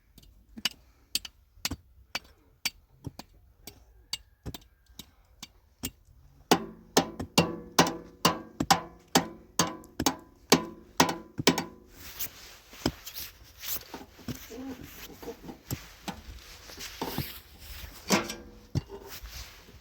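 Steady rhythmic knocking, about two or three sharp strikes a second. About six seconds in the strikes get louder and ring with a tone, and in the last stretch they grow denser and noisier.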